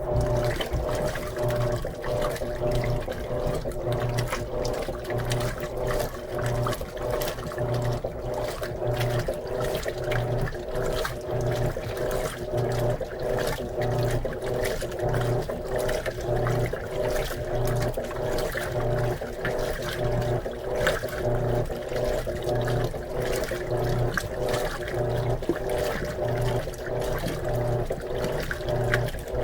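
Electrolux LM13Q top-load washing machine agitating a load of jeans during its rinse. The motor hums in pulses about once a second as the agitator swings back and forth, over water sloshing in the tub.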